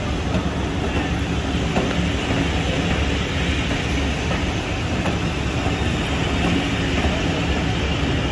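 Diesel train running steadily: a constant diesel engine drone under continuous wheel-on-rail noise, its loudness holding even.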